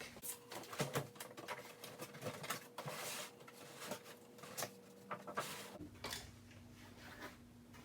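Cardboard box and plastic packaging being handled and opened: scattered soft rustles, clicks and taps, fairly quiet.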